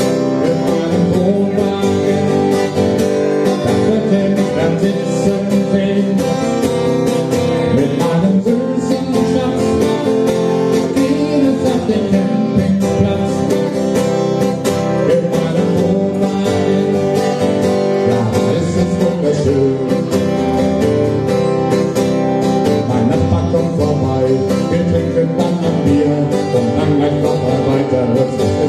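Acoustic guitar strummed steadily in a country-style song, with a man singing over it into a microphone.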